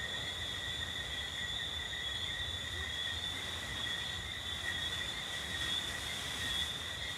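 Insects trilling in one continuous, steady high-pitched drone, with a faint low rumble underneath.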